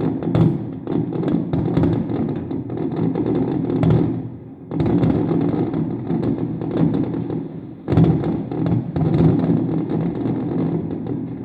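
Fireworks display going off: a dense run of thuds and bursts with crackle on top.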